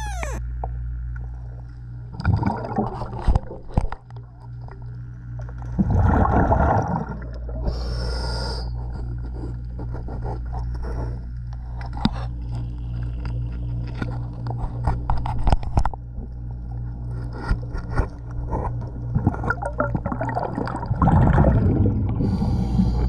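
Underwater sound of a scuba diver working on a boat's hull: bubbling exhalations from the regulator about 2.5 s in, 6 s in and near the end, with a short high hiss near 8 s. Between them, many clicks and scrapes of hands or tools on the fouled hull and running gear, over a steady low hum.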